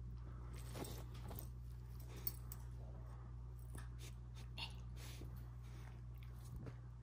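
Puppy moving about on its fleece bed, making faint scattered clicks and rustles, with one sharper click about two seconds in.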